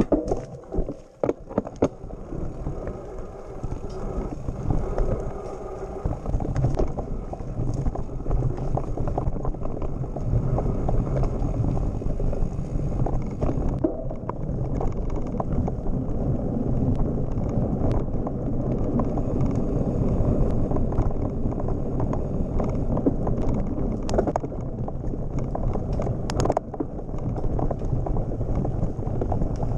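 Mountain bike riding over a rough dirt singletrack: steady rumble of the tyres and frame, with scattered knocks and rattles from bumps, as heard through a camera mounted on the bike.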